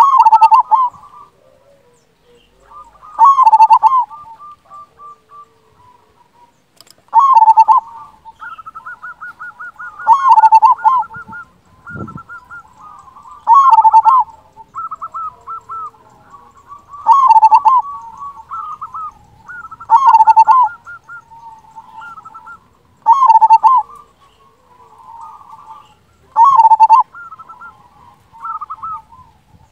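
Zebra dove (perkutut) singing: a loud cooing phrase about every three seconds, nine in all, with softer rapid trilled coos between the phrases.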